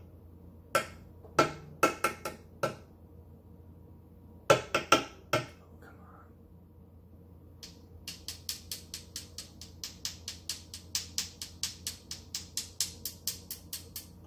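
Glass hot sauce bottle being shaken and tapped over a metal spoon to get the sauce out. There are a few sharp knocks in the first five seconds, then a steady run of light clinking taps, about three or four a second, starting around the eighth second.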